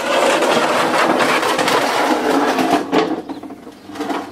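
Empty aluminium drain pan scraping as it is slid across a concrete floor, a continuous grating scrape for about three seconds that then tails off with a couple of knocks.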